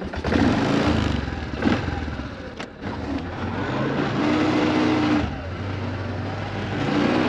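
An engine running, its speed stepping up and down several times.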